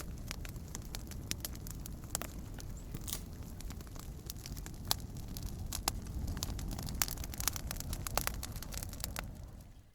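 Campfire crackling: a steady low rumble of burning with frequent irregular sharp pops and snaps. The sound fades out briefly near the end.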